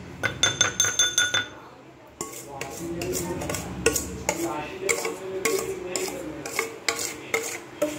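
A metal spoon clinking and scraping against a stainless steel bowl. It opens with a fast run of ringing metallic taps lasting about a second, then after a short pause come irregular scrapes and knocks as icing is cleared from the bowl.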